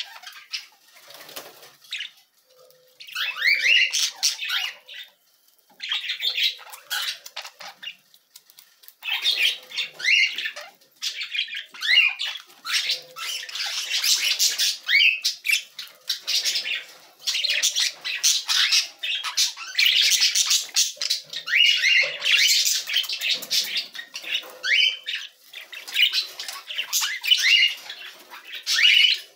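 Young budgerigars chirping and warbling, in bursts of quick high calls with short pauses between them.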